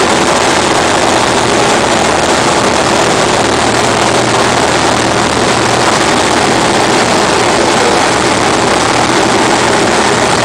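Engine and propeller of a small single-engine light aircraft running steadily in level flight, heard from inside the cockpit as a loud, even drone with a low hum.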